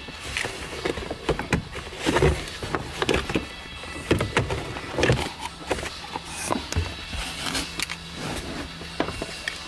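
Irregular clicks, knocks and rustling from a gloved hand working at the plastic and metal parts under a manual gear shifter's boot.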